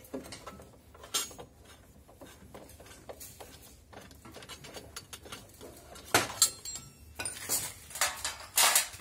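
Scattered metallic clinks, clicks and knocks of hands and tools at the motor and its wiring under a front-loading washing machine's drum. They are sparse at first and become busier and louder in the last few seconds.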